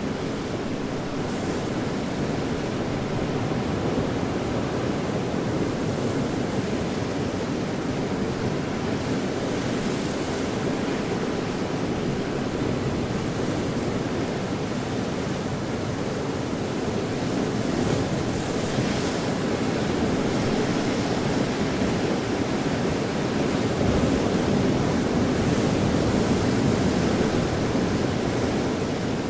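Ocean surf washing steadily against a rocky shore, a continuous rushing wash that grows somewhat louder in the last third.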